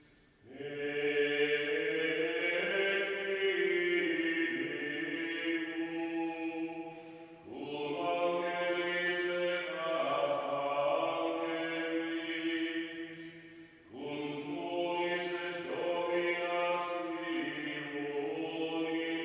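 Gregorian chant in Latin, sung by a low voice in three long, sustained phrases with short breaks for breath.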